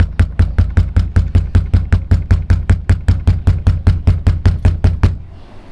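Rapid, even banging with a fist on a house door or window, about five blows a second, stopping about five seconds in.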